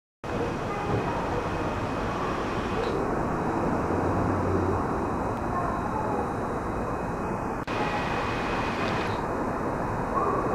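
Steady station concourse ambience: an even rushing noise, with a low hum for the first few seconds and a thin high tone that comes and goes.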